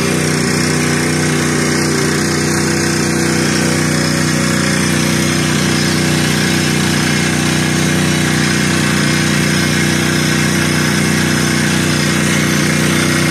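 Crawler-mounted rock drilling rig drilling a hole into the ground: its engine and drill run steadily and loudly, with a constant hiss over the low running note.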